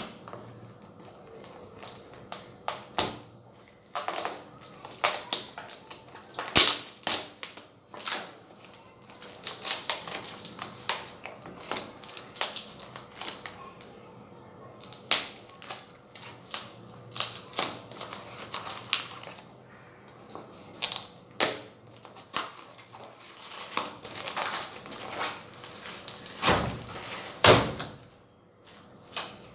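Packaging being opened and handled: an irregular run of sharp clicks, snaps and crackles from cardboard, tape and plastic wrap being pulled apart.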